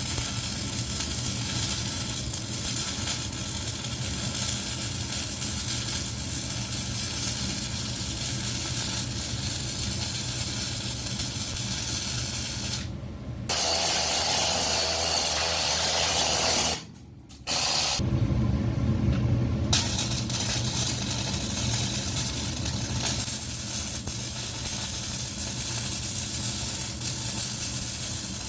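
Electric welding arc crackling and hissing steadily on steel plate, breaking off briefly twice about halfway through as the arc is stopped and restarted.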